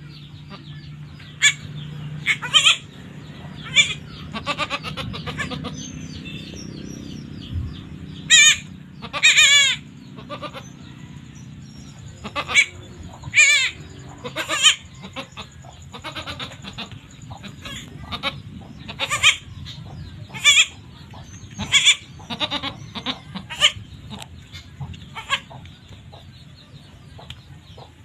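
Goats bleating, a doe with her newborn kids: short high calls every second or two, a few of them longer and quavering.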